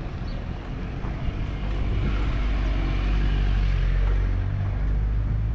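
A motor vehicle's low engine rumble with tyre noise, swelling to its loudest a few seconds in and easing off near the end, as it passes close by on the street.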